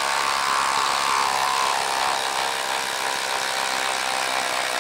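Ryobi P238 impact driver hammering steadily under load as it backs a long lag screw out of wood.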